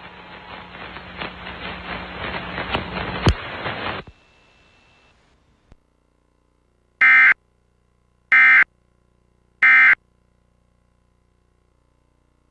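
Static hiss growing louder, then cutting off sharply about four seconds in. After a pause come three short, loud bursts of Emergency Alert System SAME data tones, the screechy digital end-of-message code, spaced a little over a second apart. They signal the end of the alert.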